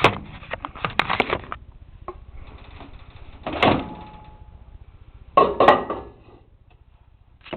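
A microwave oven door and a plastic popcorn bowl being handled: a run of light knocks and clicks, then two louder clunks about two seconds apart.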